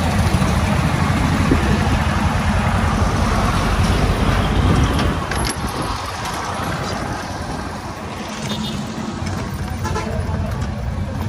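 A truck engine running close by, a low pulsing rumble that eases off about halfway through, over general street traffic noise.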